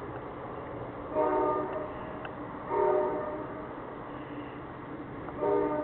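NJ Transit commuter train's air horn sounding three short chord blasts, one about a second in, one about three seconds in, and one near the end.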